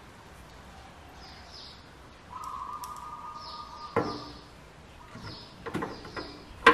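Small birds chirping repeatedly in the background. A steady whistle-like tone holds for about two seconds midway. Sharp clicks of a screwdriver working in the inverter's metal chassis come about four seconds in and again near the end.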